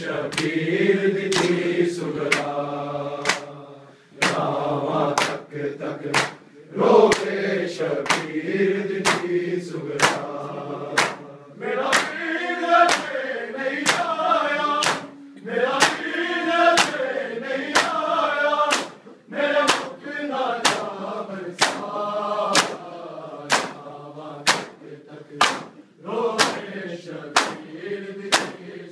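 Men chanting a noha together while beating their chests in matam, the open-hand slaps on bare chests landing in a steady beat with the chant.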